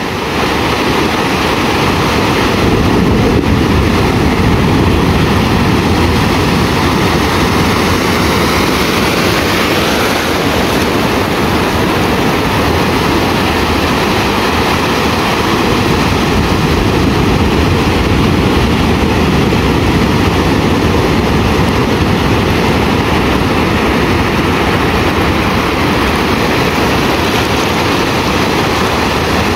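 Ocean surf: waves breaking and washing up the beach in a continuous loud rush, with no lulls.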